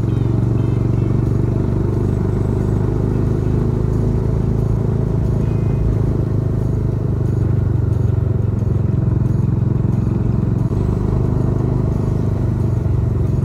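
Car engine and tyre noise heard from inside the moving car: a steady low drone.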